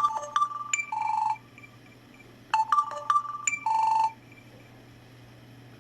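Samsung Galaxy S phone's built-in loudspeaker playing the short electronic beeping tune of its service-menu speaker test. The phrase plays twice, each time for about a second and a half, with a short gap between, then stops.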